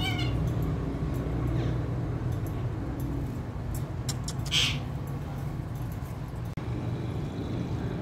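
Alexandrine parakeet giving short calls, a falling one at the start and a brief high screech about halfway through, over a steady low rumble.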